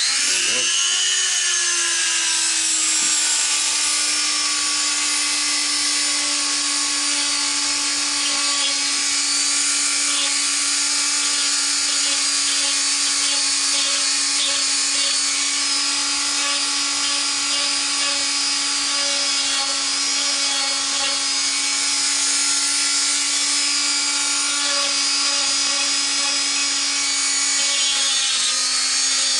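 Handheld Dremel-type rotary tool with a fine-grit grinding point running flat out, a steady high whine with a grinding hiss, as it deburrs the sharp edges of the steel drive slots on a milling-machine spindle nose.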